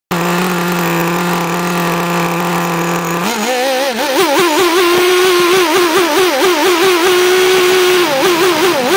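Nitro RC car's small glow-fuel two-stroke engine idling steadily. About three seconds in it revs up and runs fast, its pitch rising and falling quickly as the throttle is worked, then holds a steady high note before wavering again near the end.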